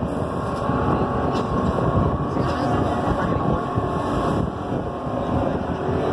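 Tour boat's engine running steadily, with wind buffeting the microphone.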